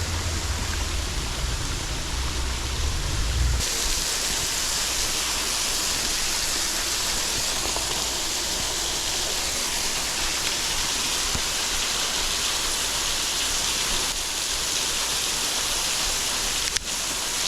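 Waterfall: a steady rush of falling water. A low rumble under it for the first few seconds stops suddenly about four seconds in, and there is a single faint click near the end.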